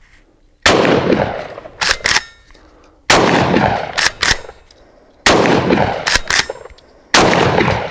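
Sulun Arms Tac-12 12-gauge straight-pull shotgun firing four shots, about two seconds apart. After each of the first three, two quick metallic clacks follow as the bolt is pulled back by hand and run forward to chamber the next shell.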